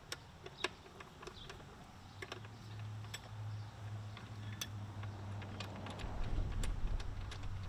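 Scattered light metallic clicks and taps from a wrench and the bolts of the stop block on an Allis-Chalmers CA's power-shift rear wheel rail, as the stop block is taken off. A low steady hum comes in about two seconds in.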